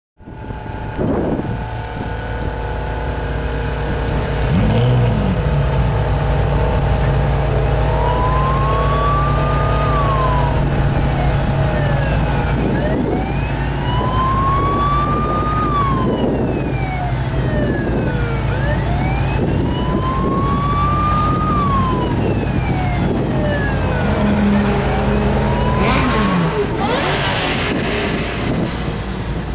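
Shelby GT500 Mustang's V8 running steadily at idle while a siren wails four times in slow rising-and-falling sweeps, about six seconds apart. A short, louder rush near the end.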